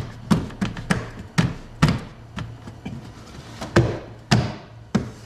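Plastic windshield cowl panel of a 2012 Dodge Charger being pressed and tapped down by hand so its clips seat: a run of a dozen or so sharp taps and clicks, about two a second.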